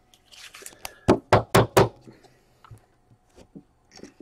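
A sleeved trading card handled into a rigid clear plastic top loader: a short scrape of plastic, then four quick, sharp knocks of hard plastic about a second in, followed by a few light clicks.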